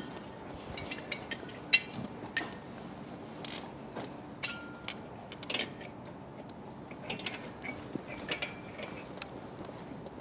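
Scattered light metallic clicks and taps of hand work on a 1947 Indian Chief motorcycle's engine while new spark plugs are fitted, with the engine not running.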